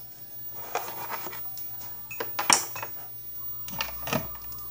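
A handful of separate sharp clicks and knocks, the loudest about two and a half seconds in, from an electric hand mixer and its batter-coated beaters being handled at a mixing bowl.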